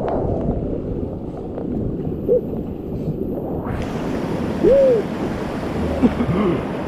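Rushing whitewater and wind on an action camera's microphone as a kayak is paddled through a rapid; the rush grows brighter about four seconds in. A few brief rising-and-falling hoot-like tones sound over it, the loudest a little before the five-second mark.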